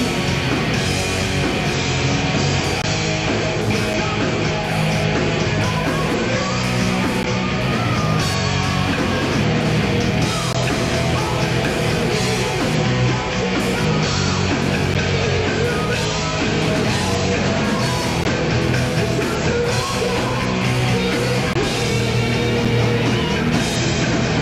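Live rock band playing at a steady loud level: electric guitars, bass and a drum kit.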